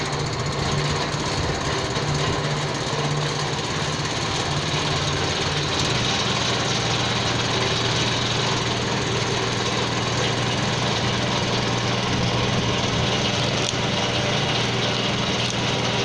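Small engine driving a chaff cutter, running steadily with no fodder being fed in yet. About six seconds in its note drops to a lower pitch.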